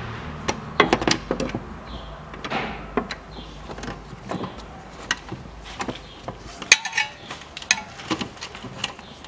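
Irregular metallic clicks and clinks of a wrench on the drive-belt tensioner pulley's bolt as the pulley is fitted and tightened. A low steady hum underneath cuts off suddenly about seven seconds in.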